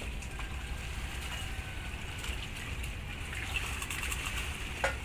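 Ferry harbour background: a steady low engine rumble from the ferries under a general wash of noise, with a short knock near the end.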